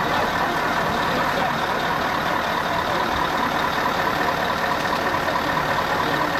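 Coach bus engine idling, a steady drone.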